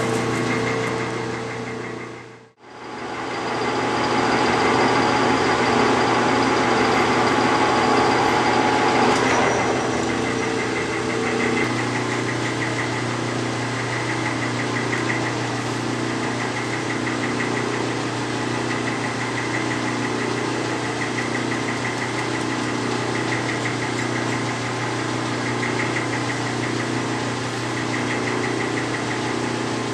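Metal lathe running with a steady mechanical hum and a repeating beat from its drive. The sound fades out sharply for a moment about two and a half seconds in, then returns, and its pattern changes about ten seconds in.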